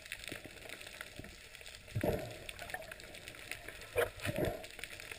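Underwater ambience: a faint, steady crackling hiss, with two brief louder swells about two and four seconds in.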